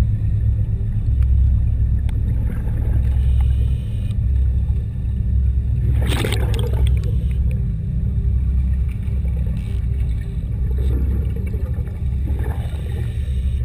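Underwater sound from a diver's camera housing: a steady low rumble, broken by rushes of scuba exhalation bubbles lasting about a second each. The loudest rush comes about six seconds in, with others about three seconds in and near the end.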